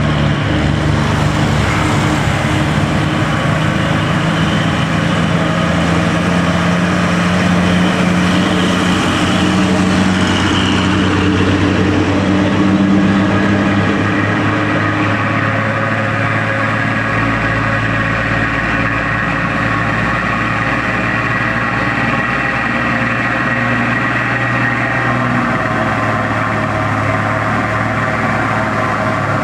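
Heavy diesel truck engines labouring up a steep grade under load, a loud, steady engine drone whose note shifts about a third of the way in and deepens a little past the middle.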